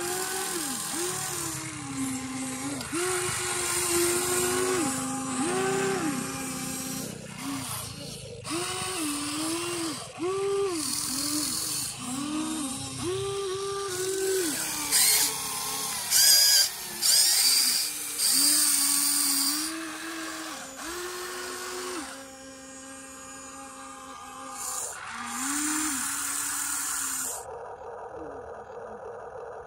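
Electric gear motors of a Huina 1593 RC excavator whining in short bursts, each rising in pitch as a motor spins up and falling as it stops, while the arm, bucket and tracks move, with bursts of high gritty noise in between. Near the end the whining gives way to a lower, steadier hum.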